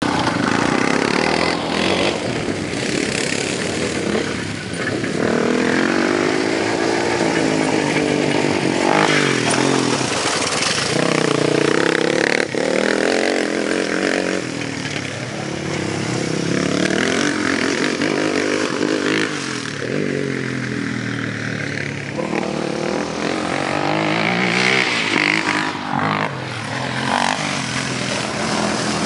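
Kawasaki KFX400 quad's single-cylinder four-stroke engine revving hard, its pitch climbing and dropping again and again as it accelerates and backs off.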